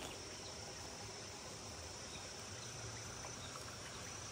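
Faint, steady insect chorus: one continuous high-pitched buzz with no breaks.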